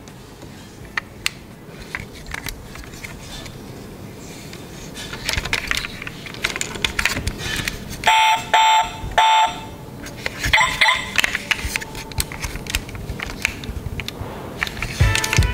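Small clicks and rattles of die-cast toy cars being handled, then three short electronic beeps about half a second apart and a quick double chirp, from a toy car's built-in sound module playing a car-alarm style signal.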